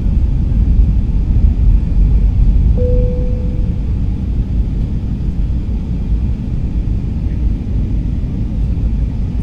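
Steady low rumble of an Airbus A320-family airliner's engines and airflow, heard inside the cabin on approach to landing. A single brief tone sounds about three seconds in and fades within a second.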